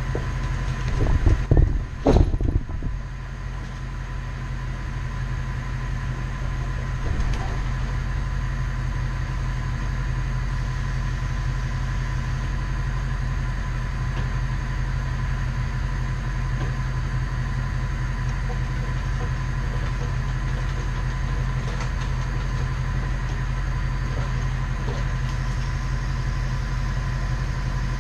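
Bucket truck engine idling steadily, with a thin steady whine over it. A few loud clunks come about one to two seconds in.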